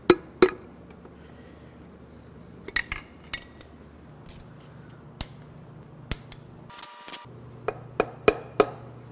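Irregular, sharp metallic clinks and clicks of a socket and extension bar on the connecting-rod cap nuts of a Jeep 4.0 L inline-six's bottom end, as the rod caps are loosened. A short ringing clink comes about seven seconds in, and three quick clinks near the end.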